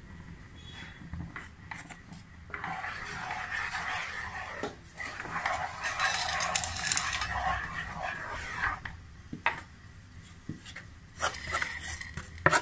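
A spoon stirring and scraping a dry mix of rice flour and wheat flour in a pan: a steady scratchy rasp lasting about six seconds. It is followed by a few light clinks and taps of spoon and bowl against the pan near the end.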